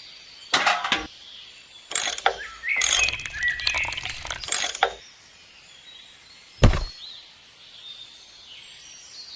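Hard objects knocking and clinking several times, with a clattering run in the middle and one heavier thud about two-thirds through, over faint bird chirps.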